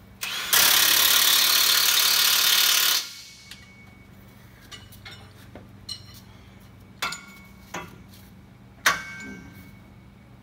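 Cordless impact wrench hammering on a bolt of a rubber track unit's frame for about two and a half seconds, then stopping. Several short, sharp knocks follow later.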